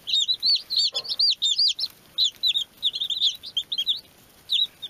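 A brood of baby chicks peeping: many short, high cheeps overlapping one another, several a second, with a brief lull near the end.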